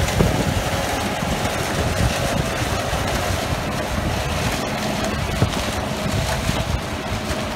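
New Holland TC5070 combine harvester running steadily as it cuts and threshes sunflowers, with wind buffeting the microphone.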